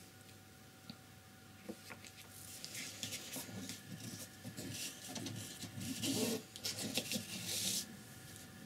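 Stiff flat paintbrush rubbed back and forth on paper, working tempera paint into its bristles, in a series of scratchy strokes that grow louder near the end.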